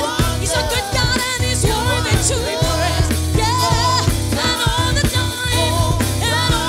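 Gospel worship music: a singer's melody over a band with bass guitar and drums keeping a steady beat.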